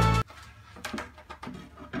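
Background music that cuts off abruptly about a quarter second in, followed by a few faint knocks and scrapes of a wooden board being handled.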